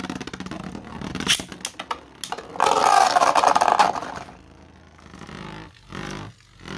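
Two Beyblade spinning tops whirring and scraping in a plastic stadium, clashing with a run of sharp clicks and knocks, loudest and busiest for about a second and a half near the middle, then settling to a lighter rattle with a few short hits.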